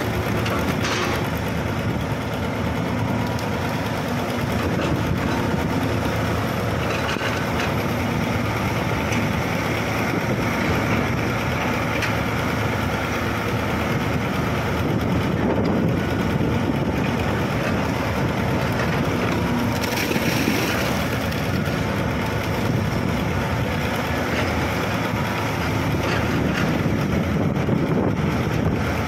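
Large hydraulic excavator's diesel engine running steadily as the machine digs wet mud out of a pit.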